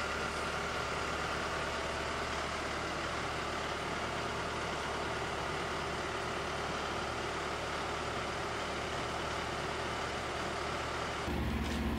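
A steady mechanical drone, like an idling engine or machine running. The sound changes abruptly near the end, with a stronger low hum.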